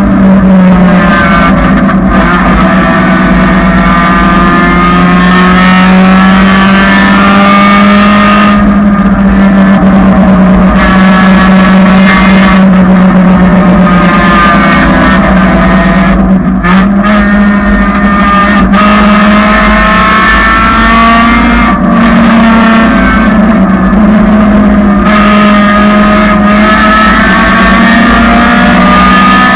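1999 Honda Civic engine running loud and hard at high revs, its pitch climbing through each gear and dropping sharply several times at gear changes and braking.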